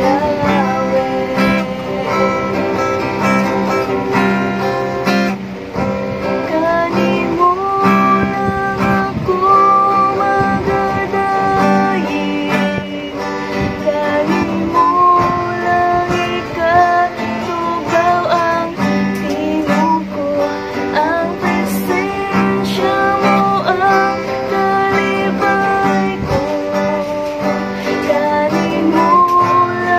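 A woman sings a Cebuano worship song, accompanying herself with steady strumming on a small acoustic guitar.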